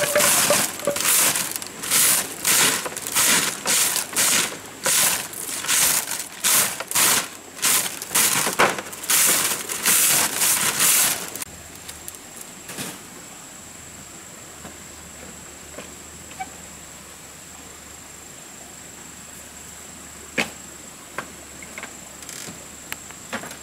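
A grass broom sweeping a bamboo-slat floor in brisk, loud strokes, about two a second. About eleven seconds in the sweeping stops abruptly, leaving a quiet background with a thin, steady high tone and a few faint knocks.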